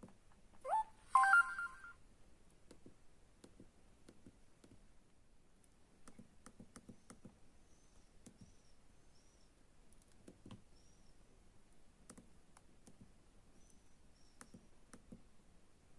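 Samsung SGH-A257 cell phone starting a ringtone preview, a rising tone then a few chiming tones, which cuts off suddenly within the first two seconds. After that come only faint, scattered clicks of the phone's keys.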